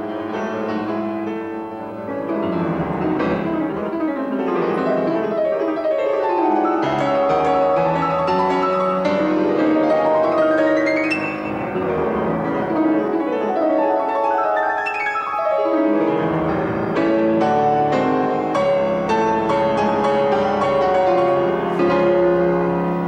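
Grand piano playing a classical solo piece. About halfway through, a long run climbs up the keyboard and sweeps back down.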